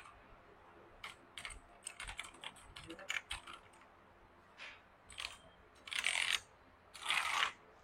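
Keys of a PC Power K98 mechanical keyboard with blue switches being pressed: scattered single key clicks, then two short runs of rapid presses in the last two seconds.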